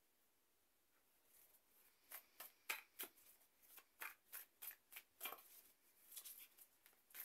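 Tarot cards being shuffled overhand by hand: an irregular run of soft card slaps and clicks, about two or three a second, starting about two seconds in.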